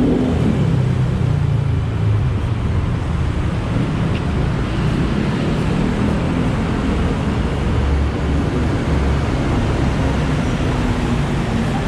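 Steady rumble of road traffic, motor vehicles running past, heavier for a moment about eight to nine seconds in.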